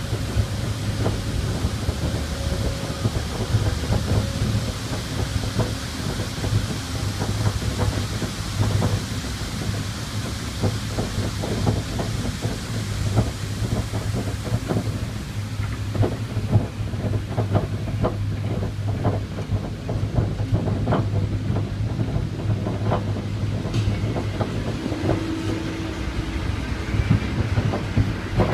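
Log flume boat being carried up the ride's lift: a steady low hum of the lift drive with irregular clacking and knocking of the lift mechanism under the boat. Rushing water hisses through the first half and fades out a little past the middle.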